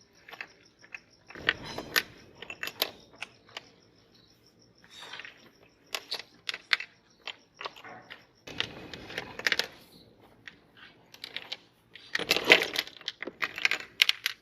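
Sticks of colored chalk crunching and clicking as they are crushed in a meat grinder, in irregular bursts.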